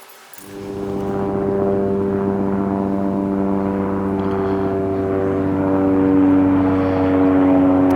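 An electric shop power tool starts about half a second in and runs at a steady speed, with a constant motor hum.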